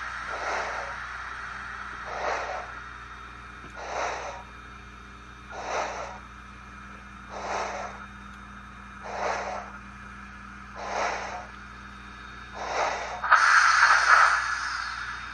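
Simulated steam exhaust from a QSI Titan-U DCC sound decoder in a model of a JNR C53 three-cylinder steam locomotive, played through the model's speakers: slow, evenly spaced chuffs about one every second and three-quarters over a steady low hum. Near the end comes a louder hiss lasting about a second and a half.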